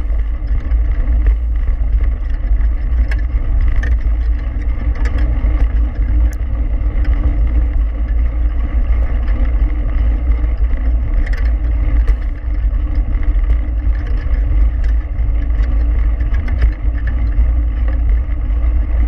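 Mountain bike rolling fast along a dirt-and-gravel track, a steady deep rumble of wind and tyre noise on a handlebar-mounted action camera, with scattered small clicks and rattles from the bike.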